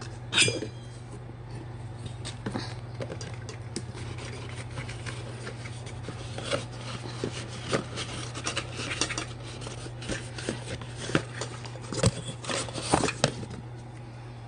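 Hard kitchenware being handled: scattered clicks, light knocks and rubbing, with a louder clatter right at the start and another run of clatter near the end, over a steady low hum.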